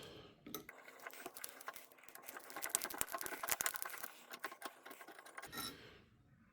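Small metal vise parts being handled, giving a quick run of faint clicks and light rattles that stops shortly before the end.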